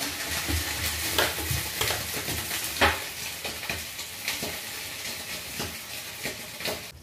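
Milkfish (bangus) frying in hot oil in a pan: a dense sizzle that starts abruptly, with sharp clicks and knocks scattered through it, the loudest about three seconds in.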